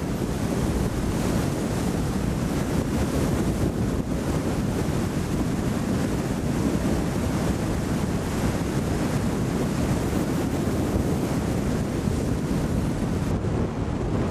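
Steady rush of wind and road noise on the microphone of a camcorder filming from a moving car.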